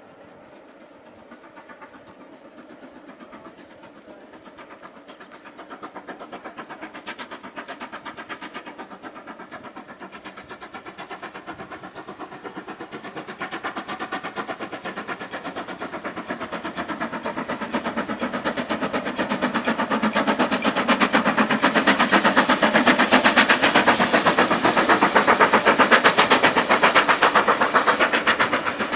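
Steam locomotive working hard with a fast, even chuffing from its exhaust, along with the rumble of its carriages. The sound grows steadily louder as the train draws near and is loudest near the end.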